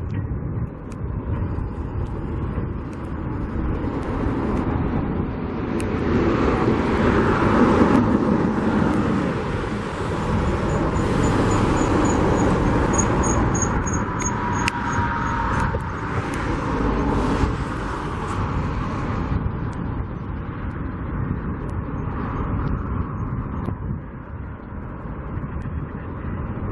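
Road traffic going by: the noise of passing cars swells from about five seconds in and eases again near twenty seconds, leaving a lower steady traffic hum.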